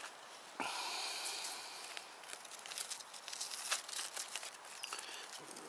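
Rustling and tearing of low forest-floor plants and moss as hands pull them aside, starting suddenly about half a second in and going on as a run of small crackles and snaps.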